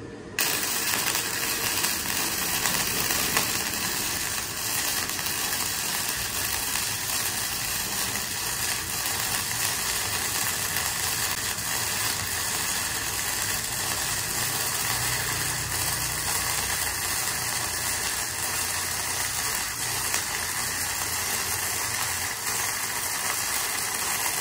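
KOBE MIG welder's arc crackling and sizzling steadily as one long continuous bead is run on thin box-section steel. It starts abruptly about half a second in.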